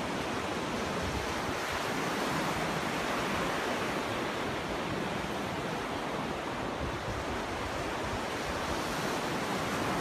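Ocean surf: small waves breaking and washing in, a steady, even rush of water with no distinct crashes.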